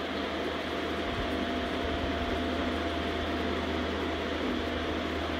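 Steady mechanical hum and hiss of room noise, with a low hum underneath and a faint constant high whine; nothing else happens.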